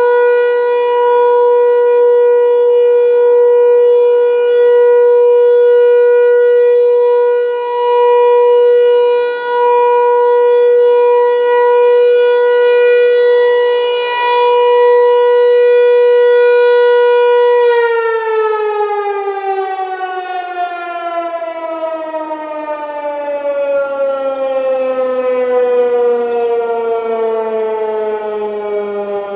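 American Signal Tempest T-128 rotating electromechanical siren sounding a steady single-tone alert, its loudness swelling and dipping as the horn turns. A bit over halfway through the tone ends and the siren winds down, its pitch falling steadily.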